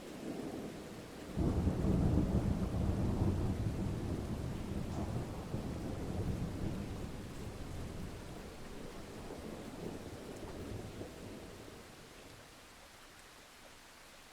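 A thunderclap breaks in about a second and a half in, over steady rainfall. It rolls on as a low rumble that slowly dies away over the next ten seconds, leaving the rain's steady hiss.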